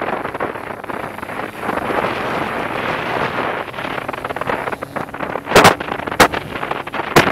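Wind buffeting the microphone of a camera riding on a moving dirt bike, with the bike's engine running under it. Three sharp knocks come near the end.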